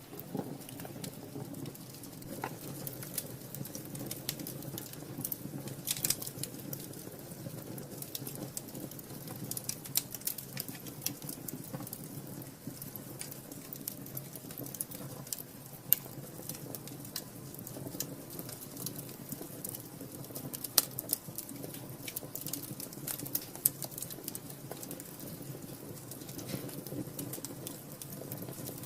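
Wood fire crackling in a fireplace: irregular small pops and snaps, a few of them louder, over a steady low rush of the flames.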